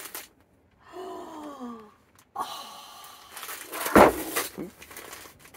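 Gift wrapping paper crinkling and tearing as a present is unwrapped, with one loud sharp rip about four seconds in. About a second in, a voice gives a sigh-like 'ooh' that falls in pitch.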